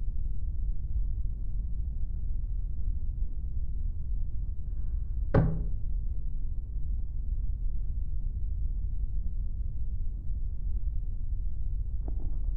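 A steady low rumble, with a single sharp knock about five seconds in as arms and head drop onto a dressing table. A few faint knocks follow near the end.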